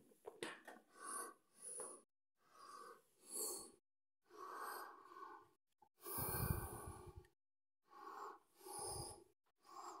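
Breathing close to the microphone in short puffs, about one a second, with a louder low rumble of handling noise about six seconds in.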